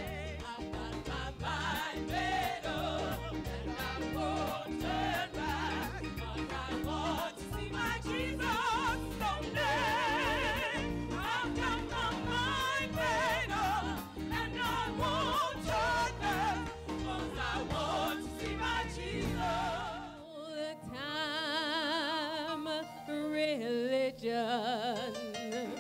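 Live gospel singing: a group of women singing over a full band with a steady beat, the voices wavering with heavy vibrato. About twenty seconds in, the band drops out and one voice carries on alone over light accompaniment.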